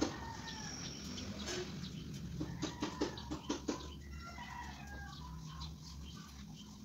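Chickens clucking and calling in short, gliding notes. A quick run of sharp taps comes in the middle.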